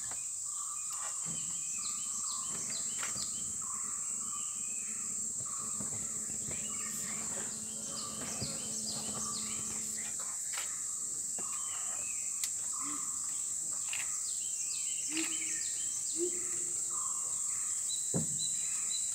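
Tropical forest ambience: a steady high-pitched insect drone of crickets or cicadas, with many short, quick bird chirps scattered throughout.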